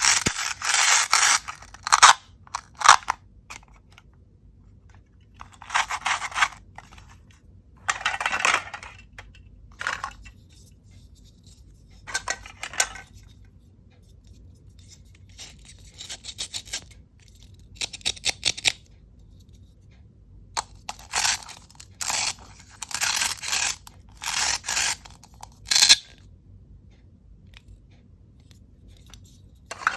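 Toy fruits and vegetables being cut apart and handled: about a dozen short rasping tears, each a second or two long with pauses between, mixed with sharp clicks and taps of plastic pieces.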